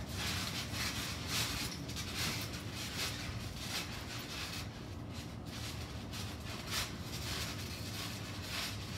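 Trampoline mat and springs sounding in a rhythm as two children bounce, about two beats a second, over a steady low hum.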